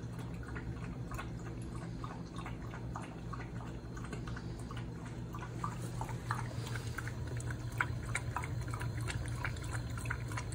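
Australian Terrier puppy lapping water from a bowl: a quick, irregular run of small wet laps that gets louder in the second half.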